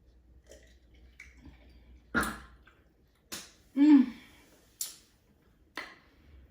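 A handful of sharp clicks and knocks about a second apart, with a short pitched vocal sound, a brief hum or grunt, in the middle that is the loudest thing heard.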